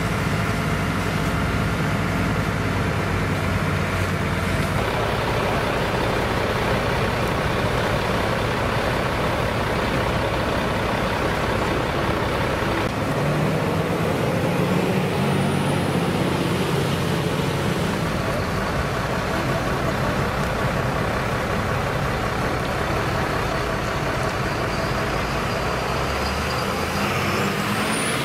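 Fire trucks' diesel engines running steadily, mixed with the rush of a fire hose. Near the end a fire truck drives close past with a brief high whistle.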